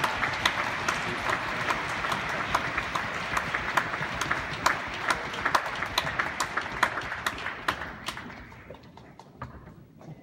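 Audience applauding, a dense patter of clapping that thins out and dies away about eight seconds in, leaving a few scattered claps.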